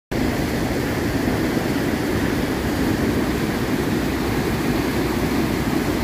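Muddy floodwater of a river rushing and churning over rocks and a concrete crossing, a steady unbroken noise.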